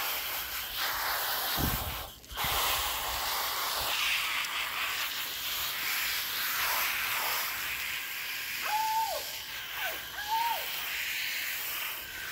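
Garden hose spraying water in a steady hiss while a dog is rinsed, with a short break about two seconds in. Two short high whines come near the end.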